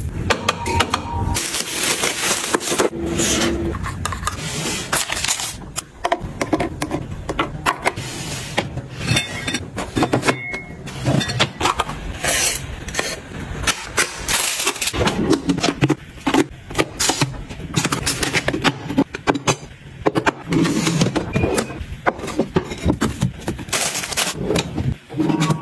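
Close-up handling sounds: many quick taps, knocks and rustles as things are set in place. Paper drink cartons go onto a glass fridge shelf, a plastic foil-roll dispenser is opened and loaded, and items are laid into a kitchen drawer.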